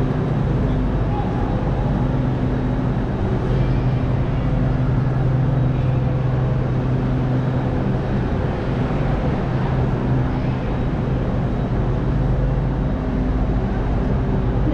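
An engine idling with a steady low hum of constant pitch, most likely a train standing in the station; the hum eases off about thirteen seconds in.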